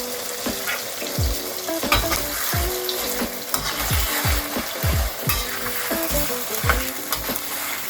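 Chicken wings sizzling as they fry in oil, stirred in the pan with a utensil that scrapes and knocks against it now and then.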